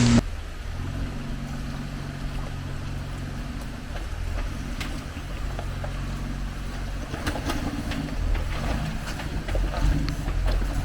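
Off-road 4x4 engine running steadily at low revs as the vehicle crawls slowly over the trail, with scattered clicks and knocks that come more often in the last few seconds.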